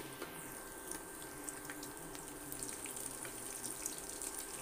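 Hot oil sizzling steadily around crab-roe fritters deep-frying in a wok, with scattered faint pops.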